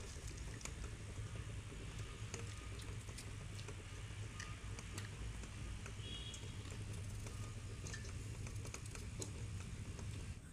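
Light, irregular crackles and clicks of shell being peeled by hand off boiled duck eggs, with a steady low rumble underneath. There are a few faint bird chirps, two of them about six seconds in.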